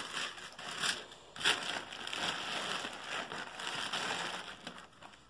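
Tissue paper and a thin clear plastic bag rustling and crinkling as hands move them around inside a shoebox. Sharper crackles come about one and one and a half seconds in, and the rustling dies away near the end.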